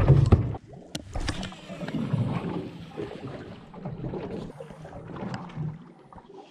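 Water lapping against a boat, with a sharp click about a second in.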